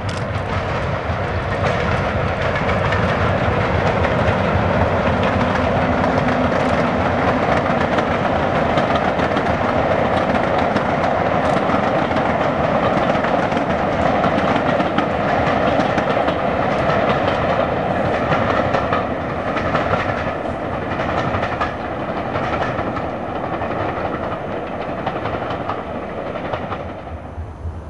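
Class 37 diesel locomotive running as it hauls a train of coaches past: a steady, loud engine roar mixed with wheel-on-rail noise. It swells a couple of seconds in and eases away in the last few seconds.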